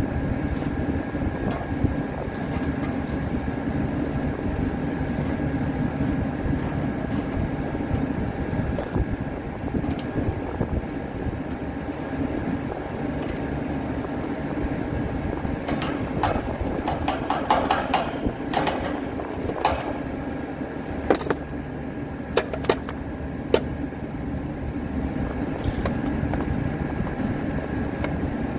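Refrigeration outdoor condensing unit running: a steady mechanical hum with fan noise. A run of sharp metallic clicks and taps comes about halfway through.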